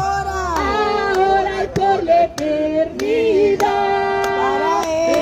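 A woman's voice singing a Spanish worship chorus through a microphone and loudspeaker, over accompaniment with sharp, regular beats.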